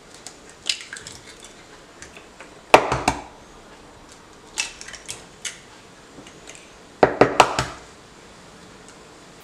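Eggs being knocked open one after another: two clusters of quick sharp taps as shells crack, about three seconds in and again near the end, with lighter clicks between.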